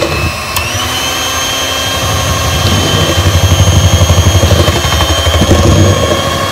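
Electric hand mixer running with a steady high whine, its beaters churning egg yolks and condensed milk in a stainless steel bowl. The whine steps up in pitch about half a second in, and a low pulsing from the beaters grows louder through the middle.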